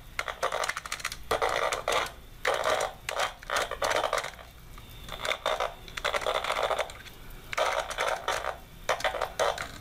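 Handheld tone-tracer probe swept over the terminals of a telephone punch-down block, its speaker giving off repeated bursts of crackling static and hum as the tip passes over the wire pairs while hunting for the toner's signal.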